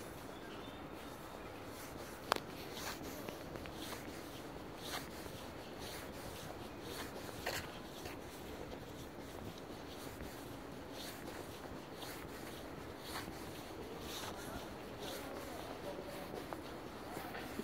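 Footsteps on an asphalt path with rustling from the handheld phone, over a steady faint background noise; one sharp click about two seconds in is the loudest sound.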